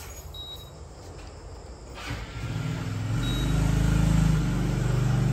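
Two short high electronic beeps, the kind the air fryer's control panel gives when a button is pressed, about three seconds apart. From about two seconds in, a motor vehicle's engine rumble builds up and stays loud, as a vehicle passing close by.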